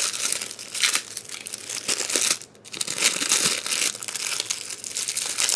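Packaging crinkling and rustling as a super floppy cube puzzle is unwrapped by hand, with a brief pause about halfway through.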